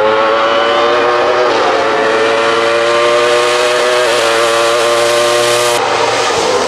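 Wolf Thunder GB08 sports-prototype race car engine running hard at high revs as the car climbs, a steady, slightly rising note with a brief dip about four seconds in. The note breaks off abruptly near the end.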